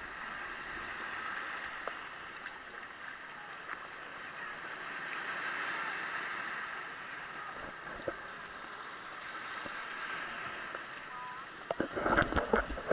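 Steady hiss of wind and lapping water. About twelve seconds in comes a cluster of loud splashes and knocks as feet wade into shallow seawater.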